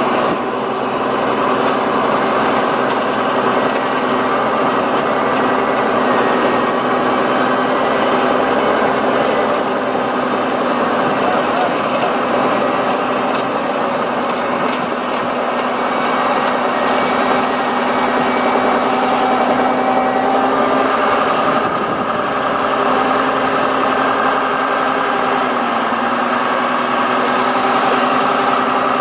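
Diesel engines of heavy machinery running steadily, with the engine note shifting about two-thirds of the way through as the load or throttle changes.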